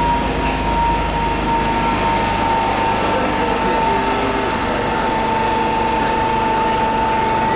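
MTR M-Train electric multiple unit standing at the platform behind the screen doors, its equipment giving a steady high whine over a loud low rumble.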